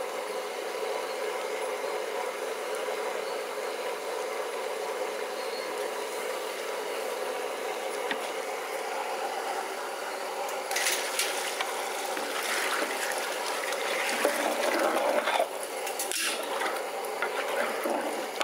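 Pot of mixed vegetable curry simmering with a steady bubbling hiss. From about halfway, a metal ladle scrapes and knocks irregularly against the steel pot as the curry is stirred.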